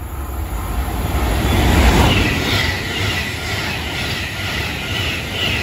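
Class 390 Pendolino electric train passing at speed: a rising rush of wheels on rail, loudest about two seconds in, then a regular beat of wheelsets, about two a second, as the coaches go by.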